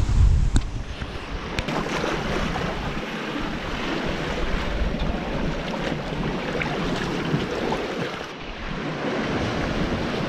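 Sea water rushing and splashing along a sailing yacht's hull as it runs fast through rough, breaking waves, with wind buffeting the microphone. The rushing dips briefly about eight seconds in.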